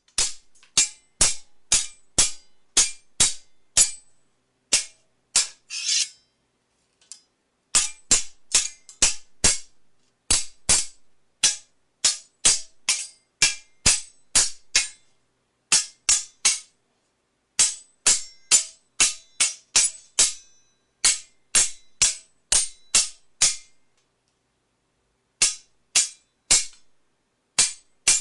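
Sword blades clashing in a fight, sharp metal-on-metal strikes about two a second, each with a short ring. The strikes come in runs broken by brief pauses, with one longer, scraping stroke about six seconds in.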